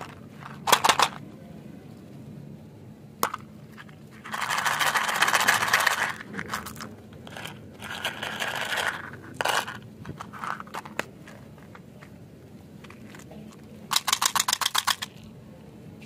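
Plastic candy containers handled close to the microphone: a sharp click or two as the Ice Breakers Sours mint tin's lid is worked, then a long clatter of small hard mints spilling out and rattling into a palm. Near the end comes a quick run of rapid clicks as the next container is handled.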